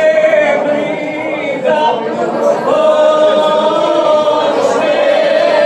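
Women's folk group singing ojkača a cappella, several voices holding long, slightly wavering notes together with no instruments.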